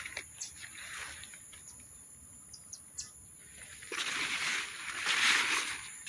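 Field ambience with a few faint, short bird chirps, one a quick falling note about three seconds in. About four seconds in a louder rustling, brushing noise takes over for nearly two seconds.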